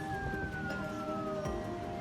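Background music with steady held notes, over which a single long tone slides slowly down in pitch for about a second and a half.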